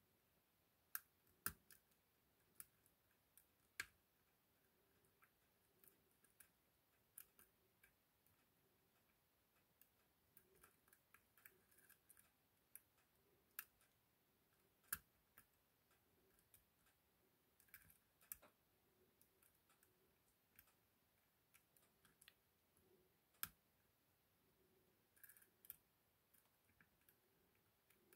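Faint, irregular metallic clicks of a lock pick working the pins of an ASSA 6000 lock cylinder under tension, scattered one or two a second.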